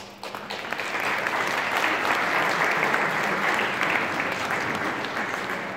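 Audience applauding: many hands clapping. The clapping builds up within the first second, holds, and eases a little near the end.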